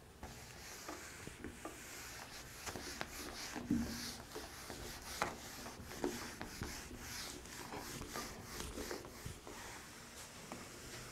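Handheld eraser rubbed across a whiteboard in repeated faint wiping strokes, with a couple of light knocks about four and five seconds in.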